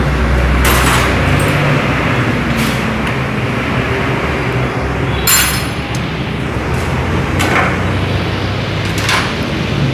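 Motorcycle engine running steadily, with a few sharp metallic clinks and knocks scattered over it.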